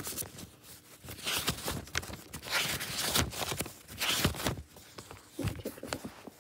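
Close handling noise from a paperback book and a phone being moved by hand: irregular scratchy rustling and rubbing, with a few light clicks near the end.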